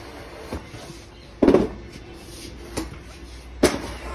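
Knocks of a wooden stool being carried and moved: a dull knock about a second and a half in and a sharper click near the end, with a few light taps between.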